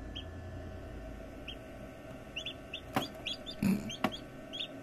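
Newly hatched chicks peeping inside an incubator: many short, high peeps, some in quick pairs, over a steady hum. About three seconds in come two sharp clicks with a brief thump between them.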